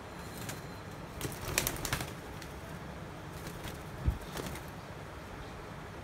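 Rose-ringed parakeet flapping its wings in a few quick flurries about a second and a half in, with a low thump at about four seconds, over a steady low background rumble.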